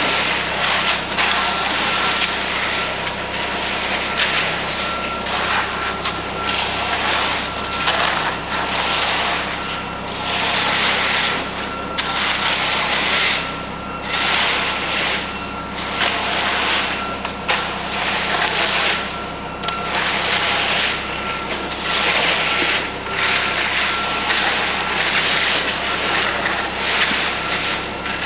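Truck running at the concrete pour, an engine rumble under a thin steady whine, with a rushing hiss that swells and fades every second or two.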